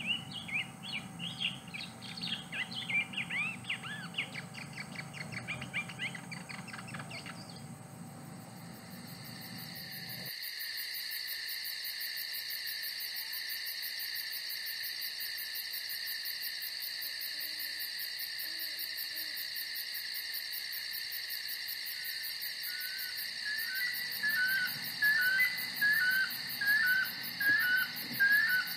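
Nature ambience: small birds chirping for the first several seconds, then a steady high insect trill with a fast pulse takes over. Near the end a short call repeats at regular intervals over the trill.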